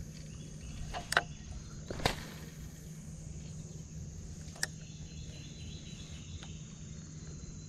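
Insects chirring steadily, with a steady low hum beneath. Sharp clicks break in about a second and two seconds in, the first the loudest, with a fainter one about midway.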